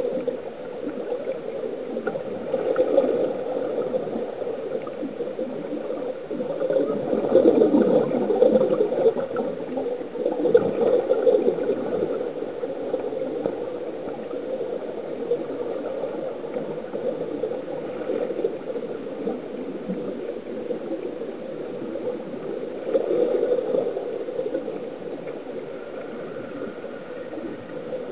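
Steady underwater bubbling and gurgling of air escaping from sea-walk diving helmets, swelling louder for a few seconds at a time, most strongly between about 7 and 12 seconds in.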